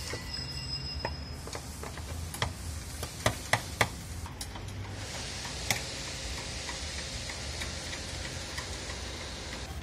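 Ratcheting wrench clicking in short irregular runs on a rear strut's upper mounting nut, with three sharper clicks near the middle. From about halfway a steady hiss takes over.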